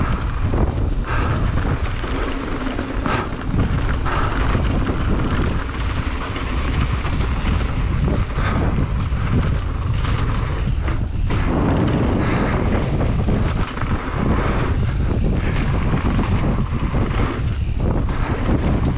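Wind buffeting the microphone of a camera carried by a mountain biker on a fast downhill descent. Mixed in is the noise of tyres on a wet dirt trail, with scattered sharp knocks and rattles from the bike over bumps.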